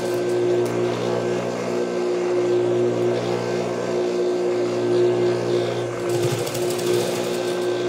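Juki industrial sewing machine running with a steady motor hum while it stitches layered fabric strips, with a brief rise in stitching noise around six seconds in.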